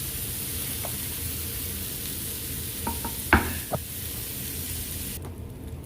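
Sisig sizzling on a hot, buttered sizzling plate: a steady hiss that cuts off abruptly about five seconds in. A few short knocks sound about three seconds in, one of them much louder than the rest.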